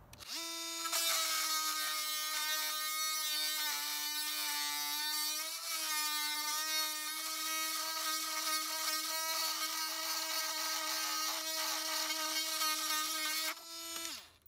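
Oscillating multi-tool with a titanium-coated metal-cutting blade running and cutting through a steel drywall screw: a steady high buzz with metal rasping over it, starting just after the start and cutting off shortly before the end.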